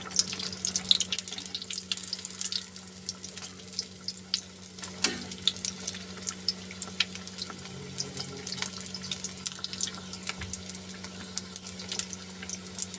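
Bread pakoras deep-frying in hot oil in a kadai on a low flame for their second fry: a steady sizzle with many small irregular crackles and pops.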